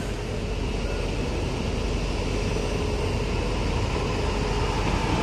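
Steady engine drone as a light single-rear-axle truck drives down a cargo ship's loading ramp, with a faint held tone running through it.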